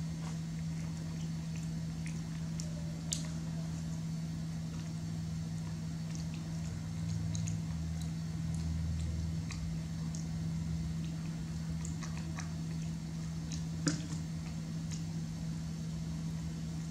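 Baby monkey handling a leaf-wrapped sweet and eating it: faint scattered clicks and rustles of leaf and chewing over a steady low hum, with two sharper clicks about three seconds in and about fourteen seconds in.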